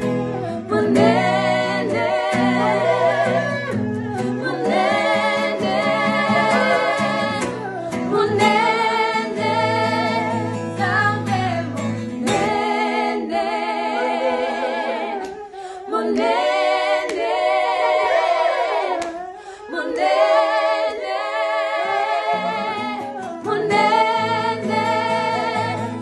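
A small mixed group of men and women singing a Lingala gospel song together in harmony, with acoustic guitar accompaniment.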